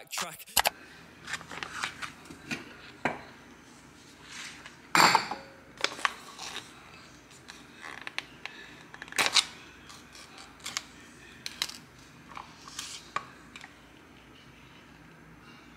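A plastic food pouch of pumpkin porridge being handled and opened, then emptied into a ceramic bowl. It makes a string of crinkles, rustles and light knocks, loudest about five seconds in and again about nine seconds in.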